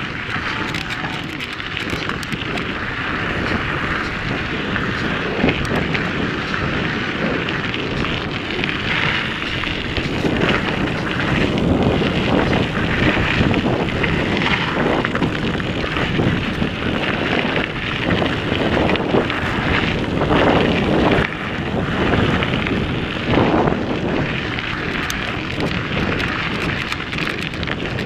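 Mountain-bike tyres rolling over a dirt and gravel trail with wind rushing on the microphone: a steady rough noise that grows louder and more uneven through the middle stretch.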